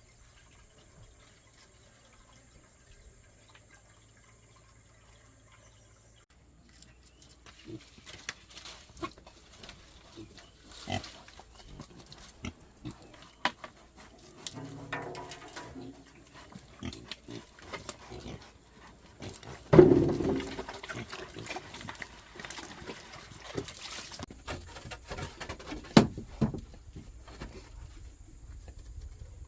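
Pigs grunting, mixed with scattered knocks and clatter. The sounds begin after about six seconds of near quiet, and the loudest grunt comes about two-thirds of the way through.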